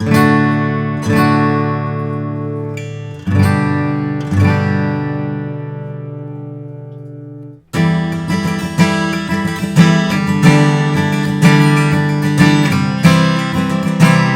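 2013 Gibson J-35 mahogany-bodied acoustic guitar being strummed: a few chords are struck and left to ring out. About eight seconds in, faster rhythmic strumming starts.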